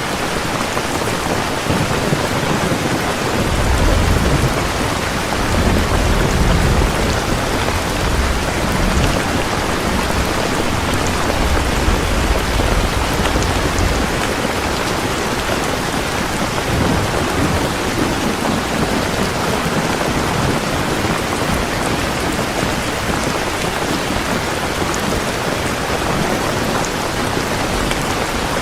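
Heavy rain falling steadily, with a low rolling rumble of thunder from about four seconds in until about halfway through.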